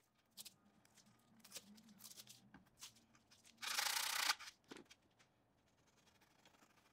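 Hand sanding of a carved wooden seat with a small handheld abrasive pad: scattered short, quiet scratching strokes, with one louder, longer stroke about four seconds in.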